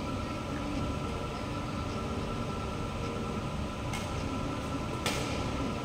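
Badminton rackets striking a shuttlecock: two sharp hits during a rally, a fainter one about four seconds in and a louder one about a second later, over a steady low hum.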